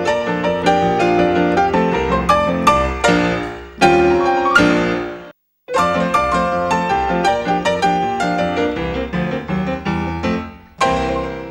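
Background piano music made of quick, many-noted phrases. It breaks off completely for a moment about five seconds in, then carries on.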